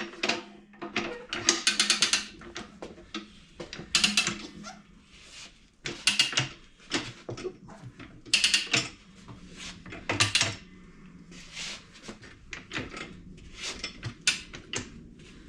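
Rabaconda manual tire changer rolling a motorcycle tire's second bead onto the rim over the duck head. Its mechanism gives short bursts of ratcheting clicks and rattles every couple of seconds as the wheel is worked around.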